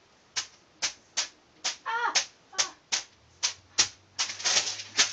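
A steady run of sharp clicks or taps, about two a second, with a brief voice sound about two seconds in.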